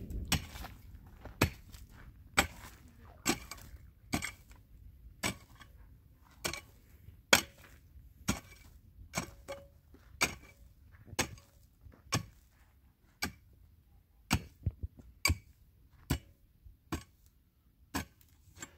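Pickaxe striking hard, stony dirt ground over and over, about one sharp blow a second, breaking up the soil.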